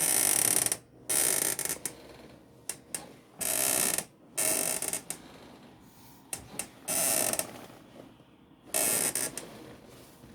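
Barsky Game Business Massage GBM-01 gaming chair creaking six times, each creak about half a second long, with a few short clicks between them. It is a nasty squeak from the backrest tilt that appeared on the new chair's second day of use.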